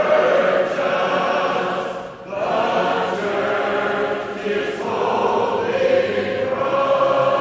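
A vocal ensemble singing a hymn in several-part harmony, on long held notes, with a brief break about two seconds in.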